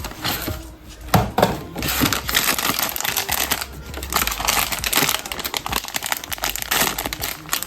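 Toy packaging being handled and opened: plastic crinkling and crackling, dense from about two seconds in.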